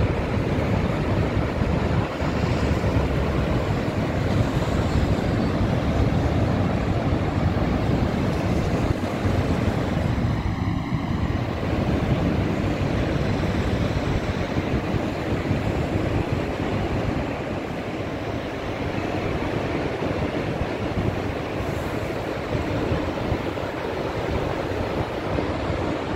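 Niagara Falls' water plunging into the gorge: a steady, heavy rush with a deep rumble underneath.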